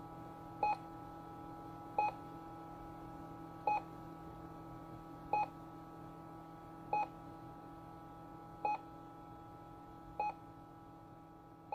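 Short electronic beeps, eight in all, repeating about every one and a half seconds over a steady electronic hum of several held tones.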